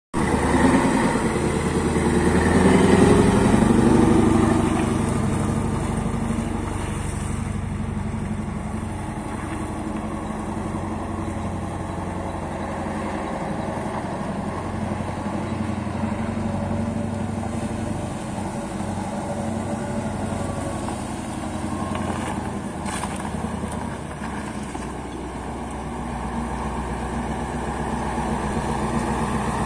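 Diesel engine of a KrAZ-based KTA-32 truck crane running steadily, a little louder in the first few seconds.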